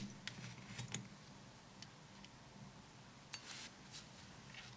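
Faint, sharp clicks and ticks of a plastic service tool and small phone parts being handled on a circuit board, a few in the first second and a short cluster with a brief rustle about three and a half seconds in.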